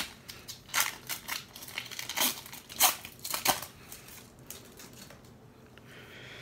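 A 2017 Donruss Optic football card pack being torn open by hand: sharp crinkling and tearing of the wrapper in quick bursts for about three and a half seconds, then only faint handling.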